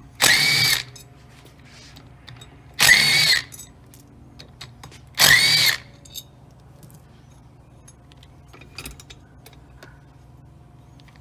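Cordless power driver with a T30 Torx bit spinning out the spring-cap bolts on a Can-Am X3 primary clutch: three short bursts, each rising and falling in pitch as the motor spins up and stops, with small clicks between.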